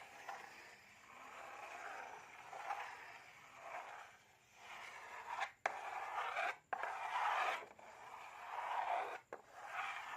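Repeated scraping and rubbing strokes, coming in swells of about a second each, with a few sudden brief cut-outs.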